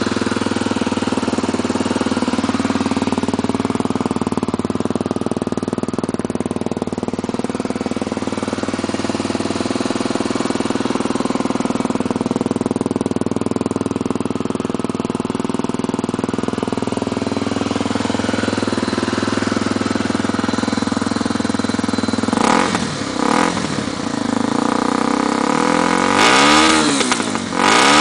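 Honda XR Tornado 250's single-cylinder four-stroke engine idling steadily through its exhaust, then revved with quick throttle blips from about 22 seconds in, the pitch rising and falling each time.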